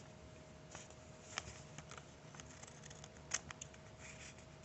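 Faint, scattered clicks and snips from scissors and paper being handled, with one sharper click a little past three seconds in.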